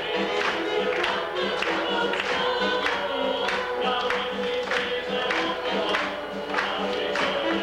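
Gospel vocal group singing a song together in harmony, with a steady beat.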